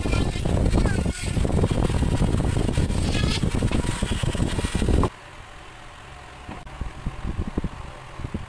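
Rotary tool on a flexible shaft cutting through PVC pipe, its motor whine dipping and rising under load. It cuts off suddenly about five seconds in, leaving faint knocks from handling the plastic.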